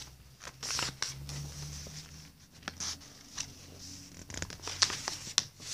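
A sheet of paper being creased by hand along a fold: short dry rubbing swishes and scattered sharp crackles and taps.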